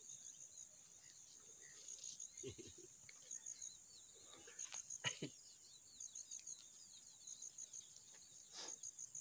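Faint outdoor ambience: an insect chirping in short groups of three or four high pulses, repeating every second or so, with birds twittering faintly.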